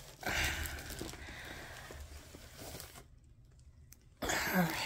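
Cardboard box scraping and plastic wrap rustling as a long rolled canvas in plastic is slid out of its box, broken by about a second of dead silence about three seconds in, then a louder rustle near the end.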